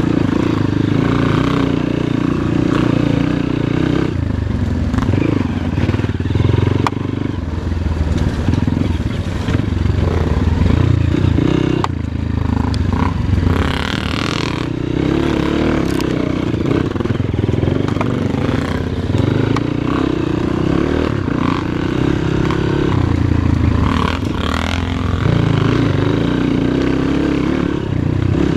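Off-road motorcycle engine running and revving up and down as it climbs loose, rocky ground, with occasional sharp clicks and knocks.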